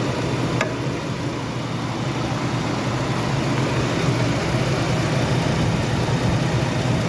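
2004 Jeep's 3.7-litre V6 idling steadily while misfiring on cylinder 3, whose spark plug gap has closed up completely.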